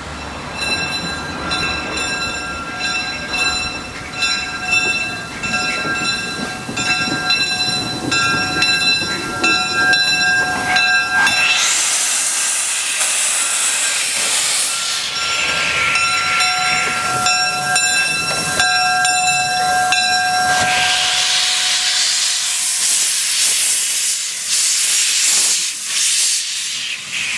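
Pre-war Pennsylvania Railroad three-chime steam whistle sounding its chord in a long run of blasts with short breaks for about eleven seconds, then steam hissing, then a second long blast of about five seconds. After that, loud steam hissing as the small tank locomotive rolls past venting steam at the front.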